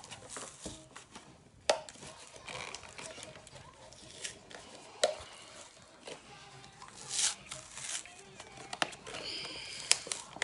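Cardboard-and-plastic toy blister pack being handled and worked open by hand: crinkling and tearing of card and plastic, with several sharp clicks spread through it.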